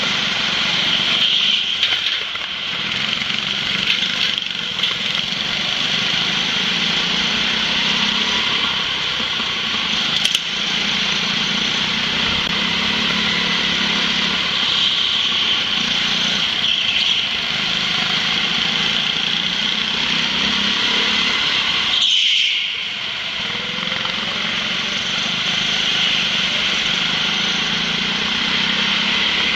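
Go-kart engine running under throttle as heard on board, with other karts around. A single short knock sounds about a third of the way in, and about three quarters through the engine note drops away briefly, then climbs again.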